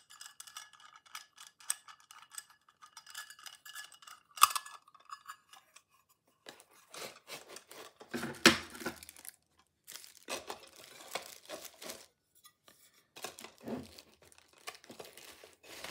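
Small aluminium lifting jack stand for a laser level being adjusted by its knob: a rapid run of fine metallic clicks with a sharp click about four seconds in. Then parts are handled and set down in a foam-lined plastic carry case, with rustling and a knock about eight seconds in.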